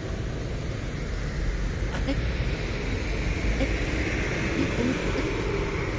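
Steady roadside traffic noise of motorcycles and trucks passing at an intersection, with one engine rising in pitch about four seconds in.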